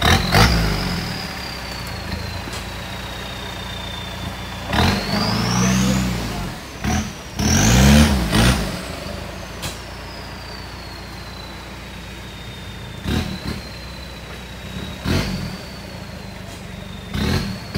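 Off-road 4x4's winch hauling the loaded truck: a steady high whine that sinks slowly in pitch under the strain. The engine is revved in two bursts around five and eight seconds in, and the whine climbs sharply with each, then sags again.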